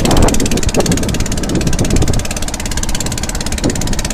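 A small fishing boat's engine running steadily, with a fast even beat.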